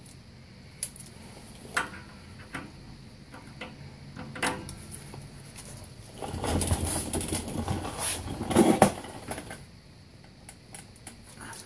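A wrench clinks against a rusted-in exhaust oxygen sensor. About six seconds in comes a few seconds of louder metal scraping and knocking as the wrench is forced, but the seized sensor does not break loose.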